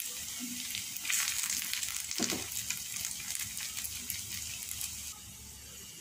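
Pointed gourd (potol) slices shallow-frying in hot mustard oil in a pan: a steady sizzle with fine crackling pops, louder for a moment about a second in. The pieces are fried crisp and nearly done.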